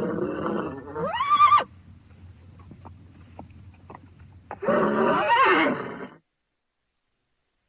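A horse whinnying twice: a first call whose pitch sweeps upward before breaking off, then after a pause of about three seconds a second, wavering whinny, ending abruptly in dead silence.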